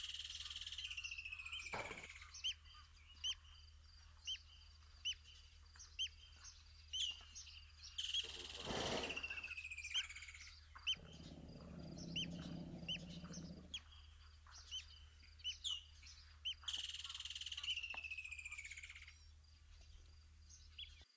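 Birds in the bush chirping and calling repeatedly, with short chirps coming every second or so and a couple of longer falling calls near the start and toward the end. Under them runs a steady low hum, with a brief rush of noise about nine seconds in and a low rumble lasting about three seconds just past the middle.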